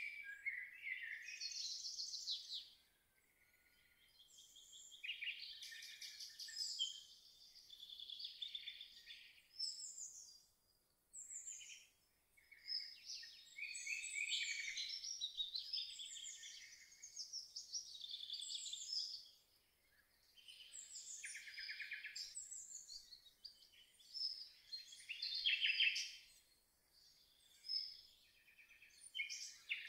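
Songbirds singing: several overlapping songs of quick, high trills and chirps, with a few brief lulls.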